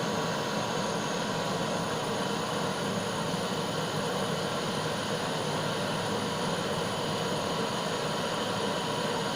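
Kitchen blowtorch flame running with a steady hiss, heating the mould and molten solder for pouring.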